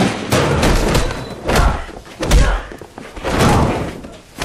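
Fistfight blows: a run of heavy punches and body thuds, several hits about half a second to a second apart, each with a deep thump.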